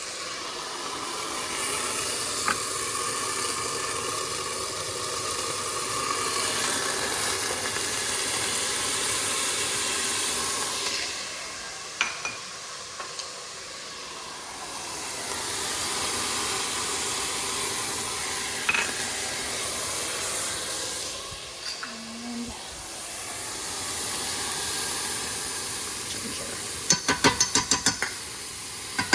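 Water sizzling and hissing in a hot pot as aromatics are sautéed in water instead of oil. The hiss swells and dies down in long waves, with a few clicks and a quick run of rapid ticks near the end.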